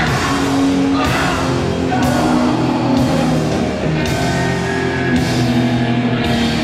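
Hardcore punk band playing live: loud distorted guitars, bass and drums, with heavy cymbal-crash hits about once a second.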